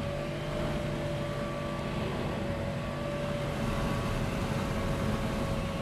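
Gas-powered leaf blower running steadily outside the bus door, heard from inside the bus, with a steady whine over its engine noise.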